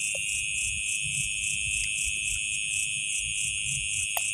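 Chorus of night insects trilling steadily at a high pitch, with a faint low rumble beneath.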